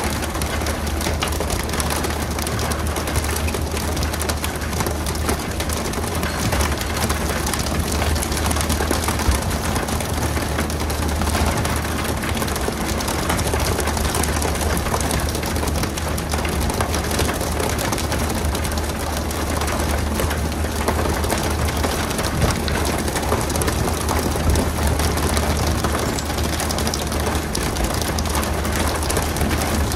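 Fishing boat's engine running steadily, with a continuous hiss of rushing or spraying water over it.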